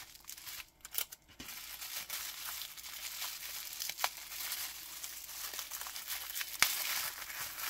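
Plastic bubble wrap crinkling and rustling as it is handled and unwrapped, with a few sharp crackles.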